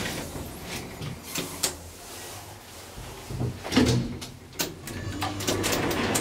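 Clicks and knocks of an elevator door being unlatched and swung open at the landing, with the loudest clunks about four seconds in, over a faint steady low hum.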